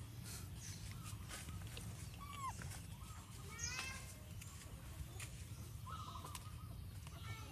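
Animal calls: a few short high chirps and falling whistles, spread across several seconds, over a steady low rumble.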